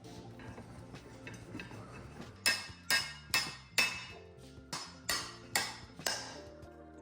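Background music with held notes and a sharp, regular percussive beat coming in about two and a half seconds in.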